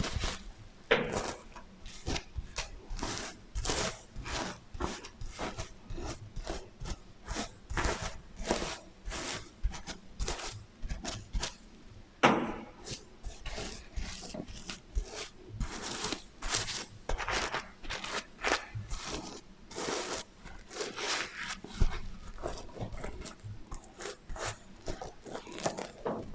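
Fingers scratching and brushing across the sequins of a sequin heart pillow, with an echo effect. The quick, irregular scratching strokes come a couple of times a second, with a few louder ones.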